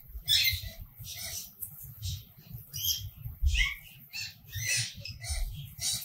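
A plastic bag crinkling and rustling in the hands as wood sawdust is shaken out of it into a wooden nest box, in irregular bursts with low handling thumps.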